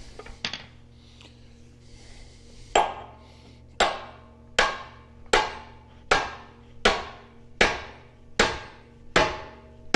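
Hammer blows on steel, one about every 0.8 s from about three seconds in, each ringing briefly, driving a part loose in a tractor transmission.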